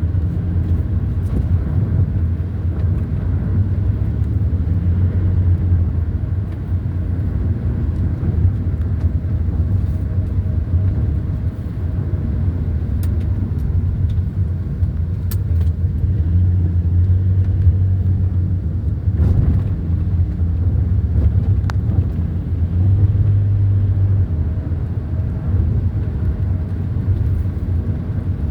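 A car driving, heard from inside: a steady low rumble of engine and road noise that swells and eases slowly.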